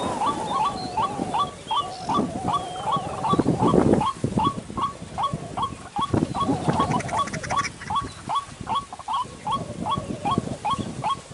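White-breasted waterhen (ruak-ruak) calling: a fast, steady run of short hooked 'kru-ak' notes, about four a second, over a low rumble.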